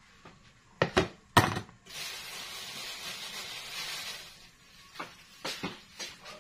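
A metal ladle and plastic basin clattering as they are set down, three sharp knocks about a second in. Then a steady hiss for about two seconds, and a few light knocks of kitchen things being handled near the end.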